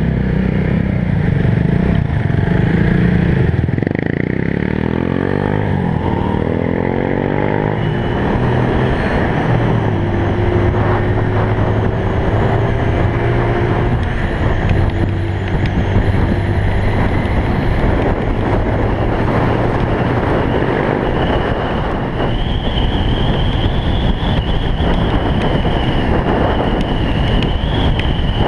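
Motorcycle engine heard from a camera mounted on the bike, pulling away and revving up through the gears with its pitch rising several times about four to eight seconds in, then running steadily at cruising speed under constant wind and road noise.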